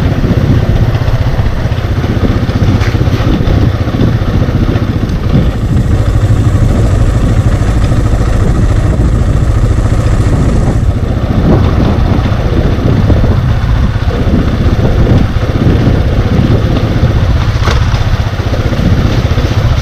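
Motorcycle engine running while riding along a rutted, muddy dirt road, under a steady low rumble with occasional knocks from the bumps.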